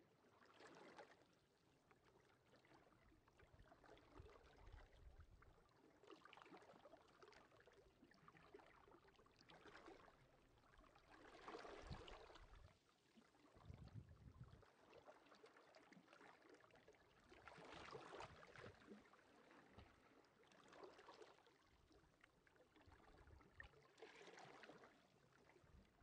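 Gentle sea waves washing onto the beach, quiet. Each wash rises and fades every few seconds.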